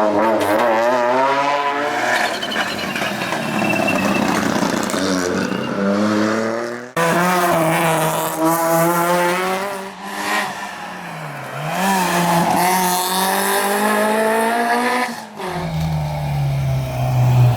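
Rally car engines at full racing pace, revving hard and rising and falling in pitch through gear changes and lifts. The sound breaks off abruptly twice, about seven and fifteen seconds in, as one car's pass gives way to another.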